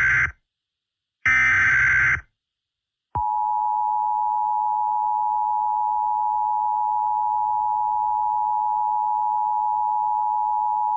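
Emergency Alert System tones: the tail of one short buzzy data burst, then a second full burst about a second in, then from about three seconds in the steady two-tone EAS attention signal, held for about eight seconds and cut off at the end.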